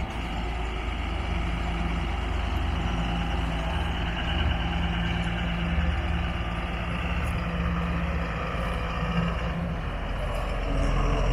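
Doosan D160S-5 forklift's 5.9-litre six-cylinder turbo diesel running steadily as the machine is driven and its forks lowered. Its note shifts about nine to ten seconds in.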